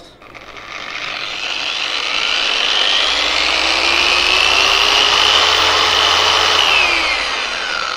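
Yato 1200 W, 3000 rpm electric car polisher running at its maximum speed setting: the motor whine rises as it spins up over the first few seconds, holds steady, then falls away near the end as it winds down.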